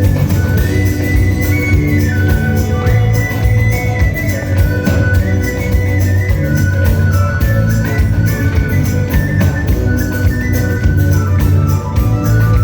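A rock band playing live, an instrumental passage with no singing: a steady drumbeat with tambourine under a held, organ-like melody line that steps up and down.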